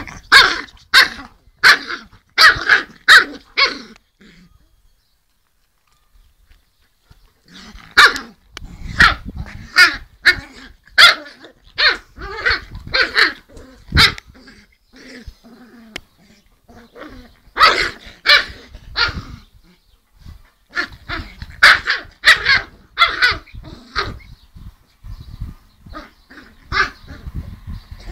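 Bernese mountain dog puppy barking in a play-fight with its mother, short sharp barks in quick volleys. The barking stops for about three seconds after about four seconds, then starts again.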